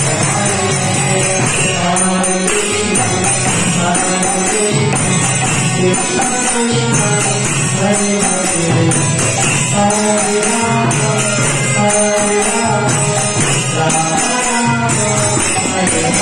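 Kirtan: a man singing a devotional chant over a harmonium, with small brass hand cymbals (karatals) ringing in time.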